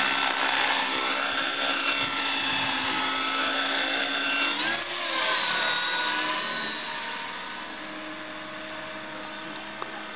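Electric RC helicopter's motor and rotor whine, steady while it hovers, with the pitch dipping and rising again about five seconds in as it climbs, then growing fainter as it flies up and away.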